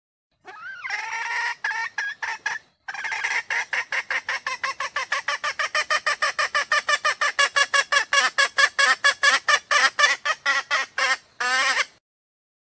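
Female red junglefowl calling: one rising-and-falling note, then a long run of rapid, evenly repeated call notes, about five a second, with a brief break early on. It is the hen's call that draws jungle cocks to her.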